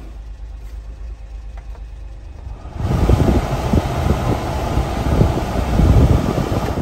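Heater blower fan of a 1994 Honda Acty mini truck switching on about three seconds in, pushing air out of the dash vents as a loud, uneven rush that buffets the microphone, with a low steady hum underneath.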